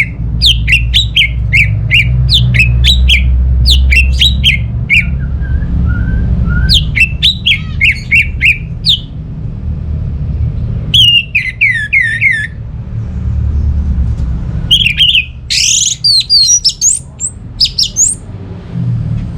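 Orange-headed thrush singing loudly in phrases of rapid, sharp notes that each slide downward, with short pauses between phrases. A low steady rumble runs underneath.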